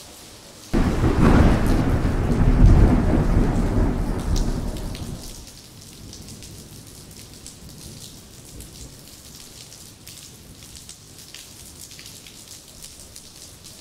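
A thunderclap: a deep rumble that starts suddenly about a second in, swells, and dies away over about five seconds, followed by steady rain pattering with small crackling drops.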